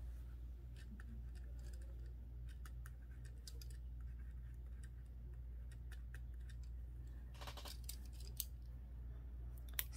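Pen on paper: faint short scratches and ticks of a pen tip writing a line of handwriting, with a brief denser run of strokes about three-quarters of the way through, over a steady low hum.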